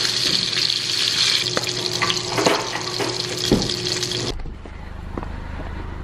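Kitchen sounds at a stove: a steady hiss with a few sharp clinks of a spatula and pan. The hiss cuts off suddenly about four seconds in, leaving a quieter low rumble.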